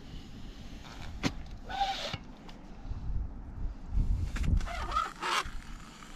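A yabby pump being worked into wet sand: a sharp click, then several short sucking, squelching bursts of wet sand and water as the plunger is drawn and pushed.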